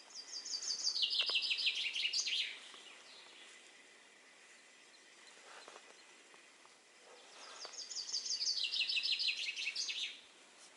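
A songbird singing twice: each song is a fast, high trill of about two and a half seconds that steps down in pitch and ends in a short flourish, the second starting about seven seconds in.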